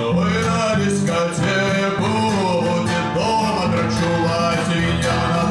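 Live acoustic guitar playing with a man singing along, steady and unbroken.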